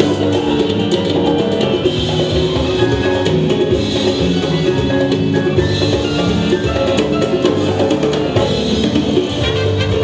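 Live band playing Latin jazz: electric keyboard over electric bass and drum kit, with dense drum and percussion strokes.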